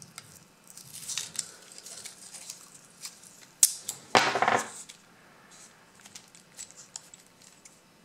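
Purple painter's tape being handled and pulled off its roll, with a sharp click and then a short rasping rip of tape about four seconds in, among light clicks and rustles from the tape and the lock cylinder.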